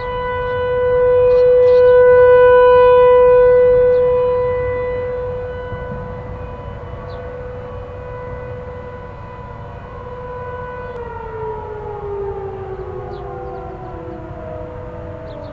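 Several distant outdoor warning sirens, among them Federal Signal 508s, sounding the steady Alert tone of a one-minute weekly test, swelling louder for a few seconds near the start. About eleven seconds in they begin to wind down, their pitches sliding down one after another.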